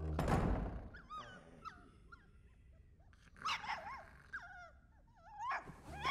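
A cartoon dog whining and whimpering in high, wavering glides, in several runs. A loud snore from a sleeping man at the start, and a similar loud rush near the end.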